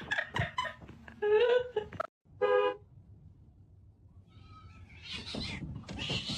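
A cat meowing about a second in, followed after a break by a short, flat-pitched call that sounds like a honk; a rough hissing or rustling noise builds near the end.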